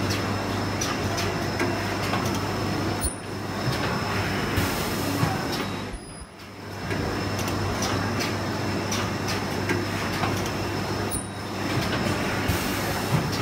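Automatic film-cutting machine running: a steady hum with scattered clicks and knocks that eases off briefly a few times. Two short hisses come about five seconds in and near the end.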